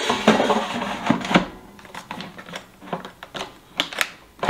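A Sauter air fryer's basket drawer slides into its housing with a scraping rub, then clicks sharply a few times as it is pushed home and latches shut near the end.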